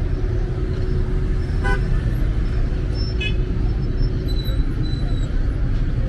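City street traffic: a steady low rumble of passing vehicles, with two short horn toots, one about one and a half seconds in and a higher-pitched one about three seconds in.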